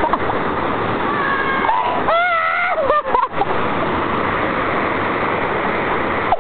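Waterfall rushing in a steady roar of water, with a high voice calling out briefly twice about two seconds in.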